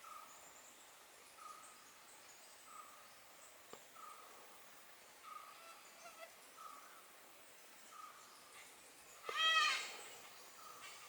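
Malabar grey hornbill giving one loud call about nine seconds in, a quick run of notes that arch up and down in pitch. Under it, a faint short note repeats about every second and a half.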